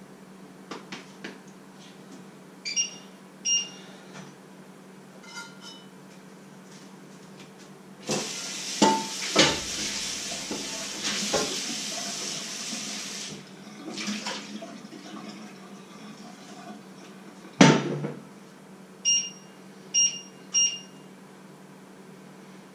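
Kitchen tap running for about five seconds in the middle, with pots and dishes clattering and a loud knock a few seconds later. Short electronic beeps sound twice early on and three times near the end, over a steady low hum.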